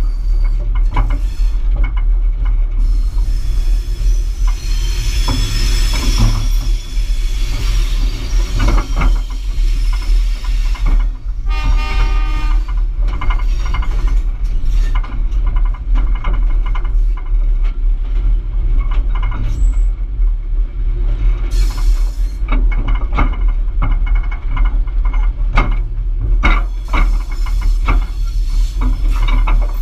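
Diesel-electric locomotive running as the train rolls slowly over the track, a steady heavy low rumble with frequent clicks and knocks from the wheels, and a brief pitched tone about twelve seconds in.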